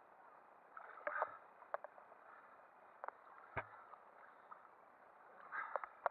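Faint scattered knocks and rustles as hands grab and climb a rope ladder with wooden rungs; the loudest knock comes about three and a half seconds in, with a short burst of knocks near the end.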